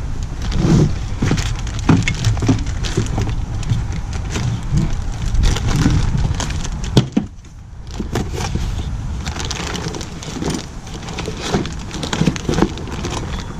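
Clear plastic bags of brake parts crinkling and rustling as they are handled, with clicks and knocks from the parts and a cardboard box, over a steady low rumble. The handling pauses briefly about seven seconds in, then picks up again.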